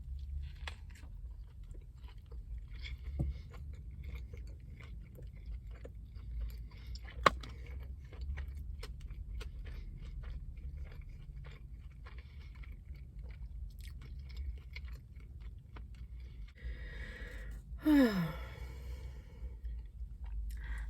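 A person chewing a mouthful of Big Mac, with small wet mouth clicks and soft crunches of bun and lettuce, over a steady low hum. A sharp click comes about seven seconds in, and a short falling 'mmm' comes near the end.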